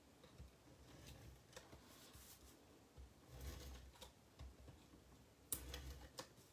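Faint rustling and tapping as small pieces of designer paper are turned over and handled on a craft mat. About five and a half seconds in, a louder scraping stroke as a tape-runner adhesive is drawn along a paper strip.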